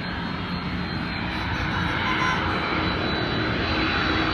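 FedEx Airbus A300-600 freighter's twin jet engines as the plane comes in to land: a steady jet noise that slowly grows louder as it nears.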